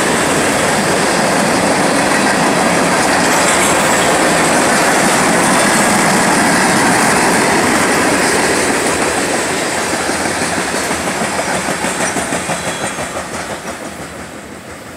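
CSX freight train's railcars rolling past with steady wheel and rail noise. Past the middle the sound fades away as the end of the train passes, with a rhythmic clickety-clack of wheels over the rail joints as it recedes.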